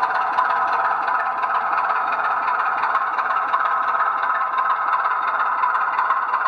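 00 gauge model train running on the layout: a steady mechanical hum and rattle, with faint light clicks over it.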